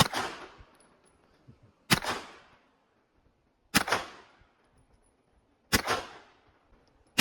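Draco 9mm pistol fired in slow single shots, five reports about two seconds apart, each with a short echo tail.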